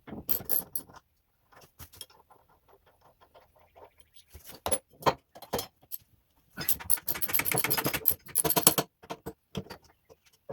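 Metal parts and hand tools being handled, with scattered clicks and clinks and a dense run of metallic clattering about two thirds of the way through.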